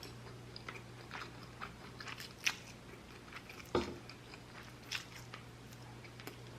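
Close-miked chewing and biting: scattered small wet mouth clicks and soft crunches, with one louder bite a little before the four-second mark, over a steady low hum.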